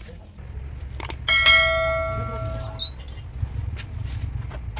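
A piece of metal struck once about a second in, ringing with several clear tones that fade over about a second and a half, followed by a few light ticks. A low steady rumble runs underneath.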